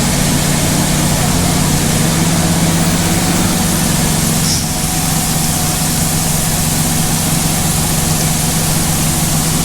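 Combine harvester running steadily while harvesting corn: a constant engine hum over an even hiss.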